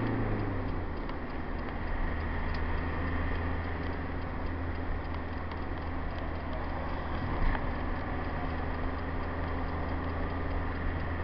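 Hymer motorhome driving at motorway speed, heard from inside the cab: a steady engine and road drone that drops in pitch about a second in, with light ticking through it. The ticking is the noise the owner is recording.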